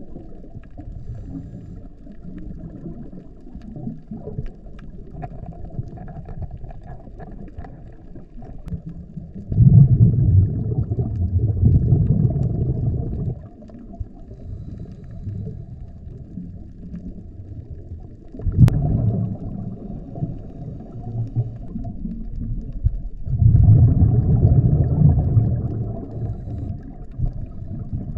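Muffled underwater sound from a scuba dive, with a diver's exhaled regulator bubbles coming in three long bubbling surges, about ten, nineteen and twenty-four seconds in.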